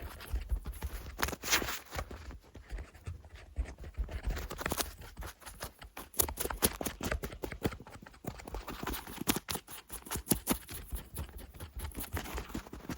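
Fast, irregular scratching and rubbing right on the microphone, standing in for cleaning a listener's ears. The short scrapes and clicks come thicker in the second half.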